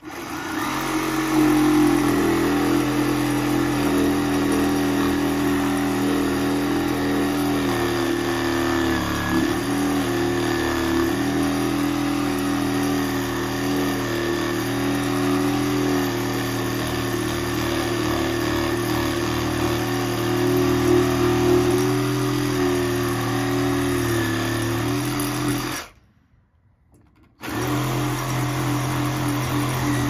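Circular saw running under load as it cuts through a post, its motor note steady with slight dips in pitch. It stops about 26 seconds in and starts again a second and a half later.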